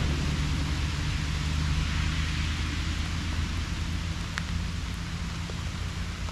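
Steady rain falling, an even hiss, over a steady low rumble. One faint tick about four and a half seconds in.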